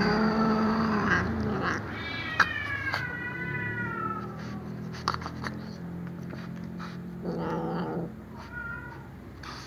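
Cat meowing in long, drawn-out yowls, each falling in pitch: two long calls in the first half, then a lower, shorter call and a brief one near the end. A few sharp clicks come between the calls.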